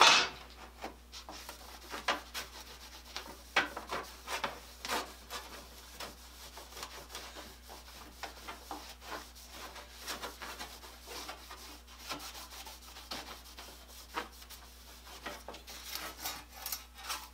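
Cloth rag rubbing paste wax onto a steel handsaw blade and along its edges, in short, uneven wiping strokes.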